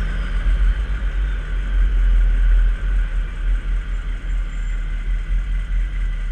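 1995 Chevy K3500 dually's 6.5 L turbo-diesel V8 running through a 4-inch open turbo-back exhaust: a deep, steady rumble as the truck drives, with a faint high whine that falls in pitch over the first second.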